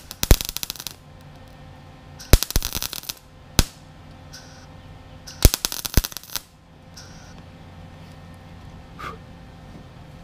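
MIG welder tack-welding a sheet-metal rust-repair patch onto a truck's windshield pillar: three short bursts of crackling arc, each about a second long, with a few sharp single clicks between them.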